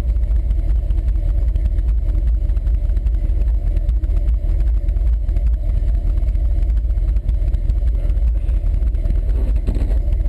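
Lifted Ford F100's engine running steadily on an off-road trail, heard from inside the cab as a continuous low rumble.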